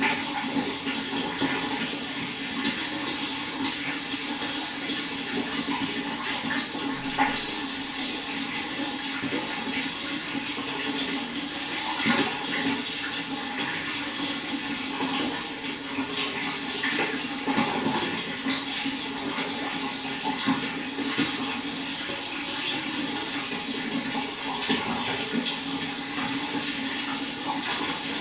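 Running water splashing and rushing steadily, with small irregular splashes standing out now and then.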